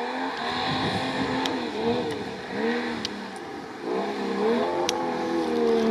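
BMW M57 diesel straight-six in an off-road competition vehicle, revved in repeated throttle bursts: the pitch rises and falls several times, then holds steady near the end.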